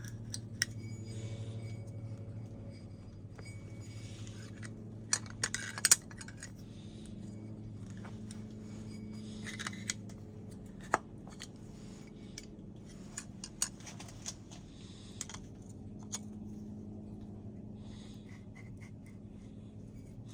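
Small metal parts being handled: scattered sharp clicks and clinks with short bursts of scraping, over a steady low hum.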